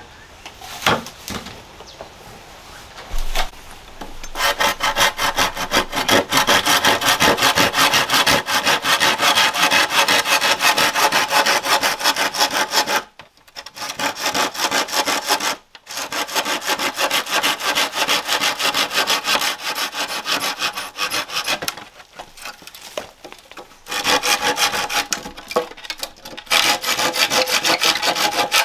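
A saw cutting through wood in long runs of quick, even back-and-forth strokes. It stops briefly several times before starting again. A few knocks come before the sawing begins, about four seconds in.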